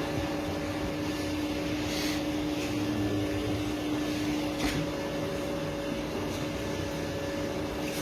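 Baguette dough-moulding machine running steadily: a constant motor hum with a mechanical whir, broken by a few short clicks.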